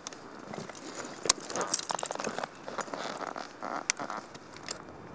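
Metal climbing hardware clinking and clothing rustling as an aid climber works in a granite crack, with a few sharp single clicks, the loudest about a second in.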